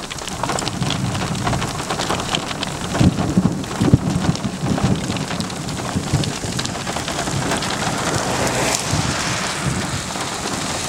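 Rain falling on a surface, with many separate drop hits, and thunder from a severe thunderstorm rumbling, loudest about three to four seconds in.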